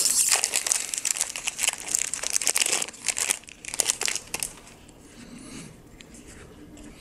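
A foil Magic: The Gathering booster pack wrapper crinkling and crackling as it is torn open. The crackle dies away about four seconds in, leaving a soft rustle of the cards being handled.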